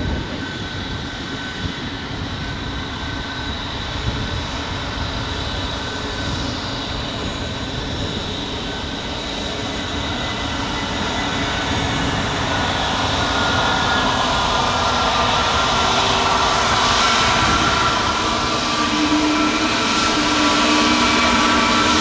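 Airbus A320neo's Pratt & Whitney PW1100G geared turbofan engines running at taxi power as the airliner taxis closer, a steady jet rush that grows steadily louder, with whining engine tones coming up in the second half.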